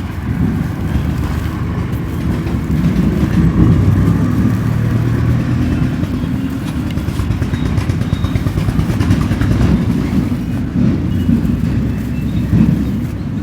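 Dry lumps of red dirt being crumbled and crushed on a hard floor, a continuous low, gritty crunching.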